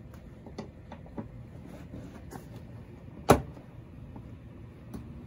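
Ratchet with a 10 mm socket tightening a bolt: scattered light clicks, with one sharper knock about three seconds in and a smaller one near the end.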